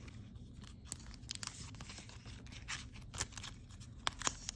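Sticker sheets being handled and flipped through: rustling and crinkling of thin sheets, with many small sharp crackles scattered throughout.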